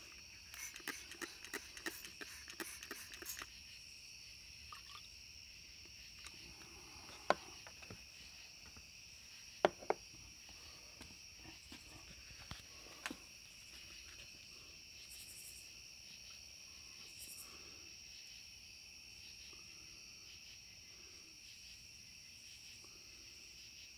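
Faint steady high-pitched chirring, with a quick run of small clicks in the first few seconds and three single sharp taps later on.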